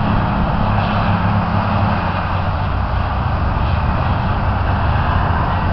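Sand-and-water slurry gushing steadily from a beach-replenishment dredge discharge pipe, over the steady low drone of an engine running.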